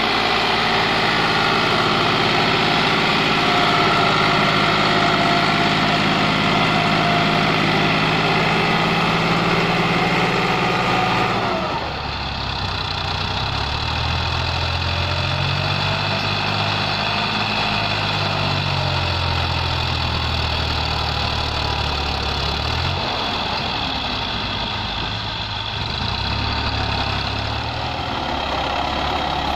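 Massey Ferguson 260's three-cylinder diesel engine working hard, pulling a heavily overloaded trolley with its front wheels lifted. About 12 s in the sound cuts to another take, where a tractor diesel engine's note rises and falls for several seconds, then runs steady.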